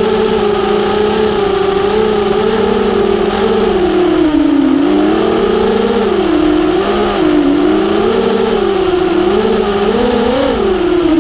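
FPV racing quadcopter's Skitzo 2500 kV brushless motors and DAL props, heard through the onboard camera: a loud, steady droning hum whose pitch follows the throttle. It holds steady at first, then dips about four seconds in and swells up and down several times, highest near the end.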